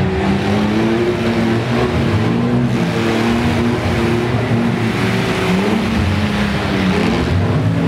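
Several demolition-derby mini pickup trucks' engines running and revving together, loud and continuous, their pitch wavering up and down as the drivers throttle on and off.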